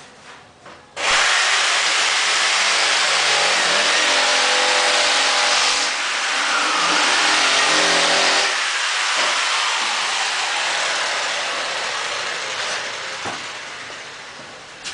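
Electric power saw starting up about a second in and cutting a laminate floor plank, its motor pitch dipping under load midway, then winding down slowly toward the end.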